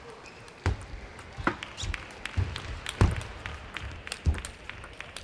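Table tennis rally: the celluloid ball clicking sharply off the bats and the table about once or twice a second, with low thuds under several of the hits.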